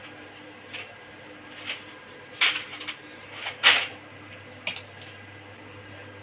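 Scattered light knocks and rustles of objects being handled on a work surface, the loudest a little past halfway, over a steady low hum.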